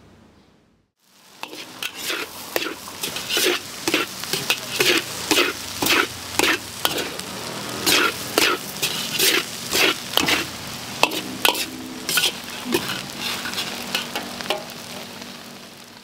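Metal spatula scraping and striking a large wok as fried rice is stir-fried over high heat, about two strokes a second, over a steady sizzle. It starts about a second in.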